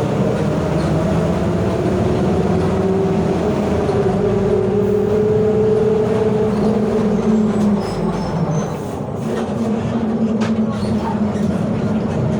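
Mercedes-Benz OF 1721 Bluetec 5 city bus on the move, its OM924LA 4.8-litre four-cylinder diesel running under a whining differential tone. The whine holds and then drops away about seven seconds in, and a few light rattles come near the end.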